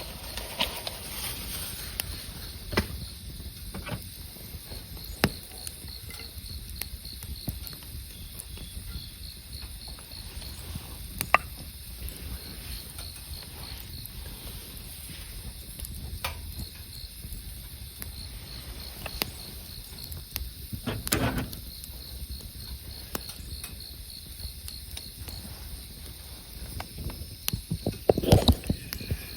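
Wood campfire crackling, with scattered sharp pops, over an insect chirping in short rapid trains of high pulses. Near the end comes a cluster of louder knocks.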